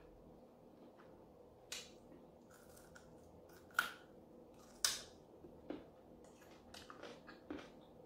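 Crunchy bites and chewing of fried chicken wings close to the microphone: a handful of sharp crunches, the loudest two about four and five seconds in.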